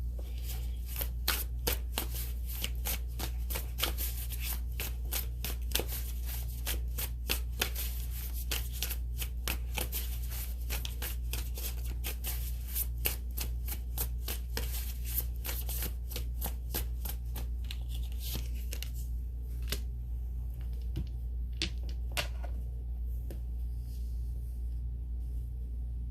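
A tarot deck being shuffled by hand: a long run of quick card flicks that thins out to a few separate card snaps near the end. A steady low hum runs underneath.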